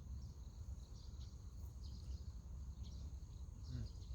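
Steady high-pitched insect chorus, like crickets, with short chirps now and then, over a constant low rumble.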